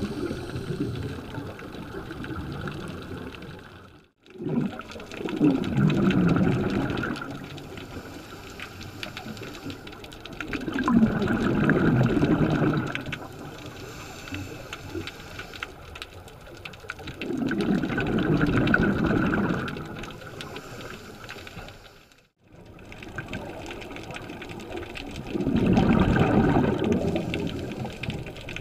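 Scuba regulator breathing heard underwater: a rush of exhaled bubbles every six or seven seconds, four times, with quieter water noise between. The sound cuts out briefly twice.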